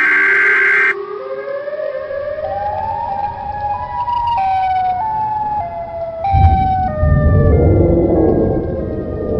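Siren-like electronic sound effect: a loud steady tone for about the first second, then a wailing tone that climbs in steps and falls back in steps. A deep rumbling noise joins it about six seconds in.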